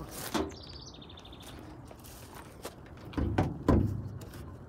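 A small bird gives a quick, high, rapidly pulsed chirp about half a second in. Around three seconds in come a few dull thumps and knocks, the loudest just before four seconds.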